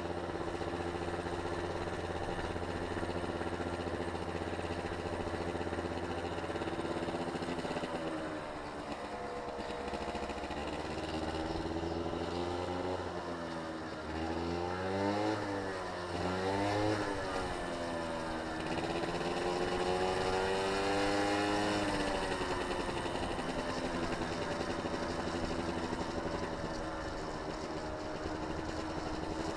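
A motor engine running steadily, its pitch falling and rising several times about halfway through as its speed changes, over a steady rushing noise.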